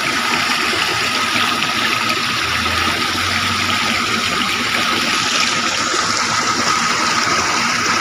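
Small stream of water spilling over a rock lip between boulders into a shallow pool: steady splashing of running water.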